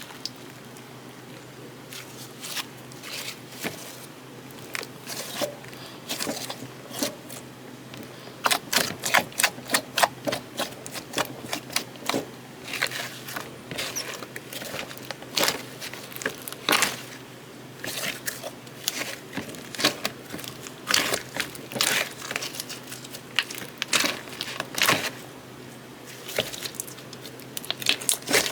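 Slime being squeezed and stretched by hand, giving off irregular runs of sharp clicks and crackling pops.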